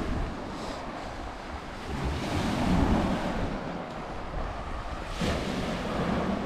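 Small lake waves washing onto a pebble beach, surging louder twice, about two and five seconds in, with wind buffeting the microphone.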